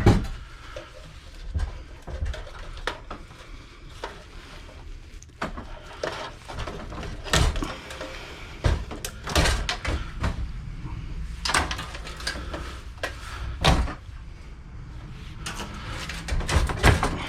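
Irregular knocks, clanks and scrapes of old desktop computer parts being pried and knocked apart on a worktable, with the loudest hits at the start and several more in the second half.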